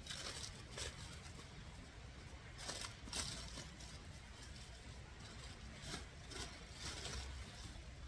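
Irregular rustling and scuffing noises in several short bursts, the loudest about three seconds in, over a faint low rumble.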